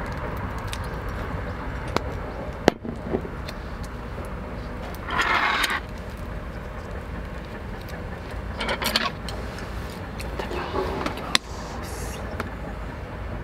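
Soy sauce pouring from a bottle into a stainless steel cup at the start, then a few sharp knocks and brief rustles of tableware being handled, over a steady low rumble.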